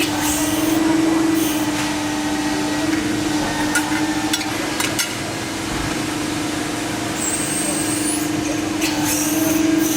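CNC press brake running: a steady machine hum throughout, with a few sharp clicks around the middle and a short rising high whine about three quarters of the way through.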